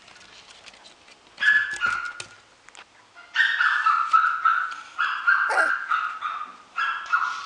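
A puppy whining in high-pitched drawn-out cries, in several bouts beginning about a second and a half in, with a few sharp clicks during the first bout.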